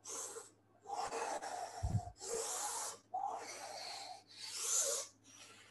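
Breathy blowing whooshes imitating a bellows: about five long exhaled bursts in a row, each around a second, with short pauses between.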